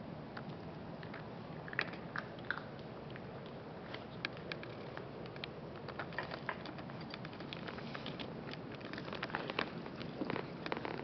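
Small Coton de Tulear dog eating from a bowl: crunching and chewing its food in scattered sharp clicks that come thicker near the end.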